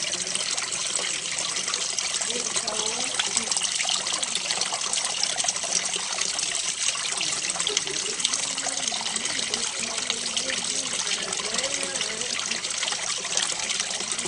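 Water fountain spraying and splashing steadily.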